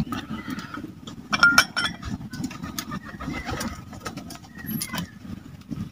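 Low, steady cooing of pigeons. A quick run of sharp clinks and knocks about a second and a half in is the loudest sound.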